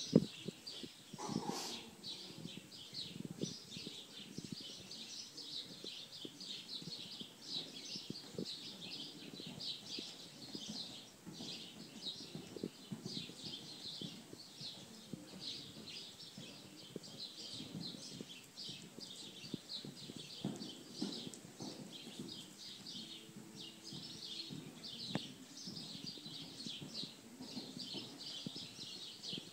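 Small birds chirping steadily and densely, over the soft dull thuds of a horse's hooves cantering on arena sand footing.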